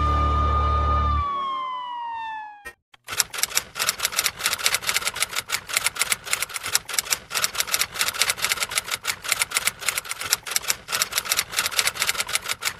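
The intro music ends on a held tone that slides down in pitch and cuts off about two and a half seconds in. After a brief silence, rapid typewriter keystrokes begin, several sharp clicks a second at uneven spacing.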